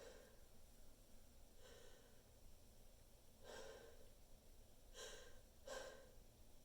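A person's short, faint breaths, five of them a second or so apart, in the build-up to a sneeze.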